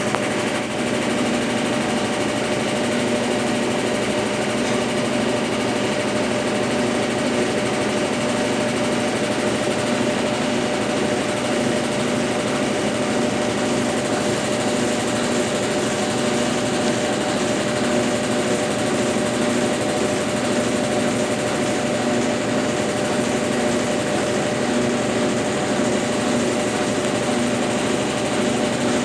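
Consul Facilite 10 kg top-loading washing machine running steadily through its cycle, a constant motor hum with a steady whine and a faint regular pulsing throb.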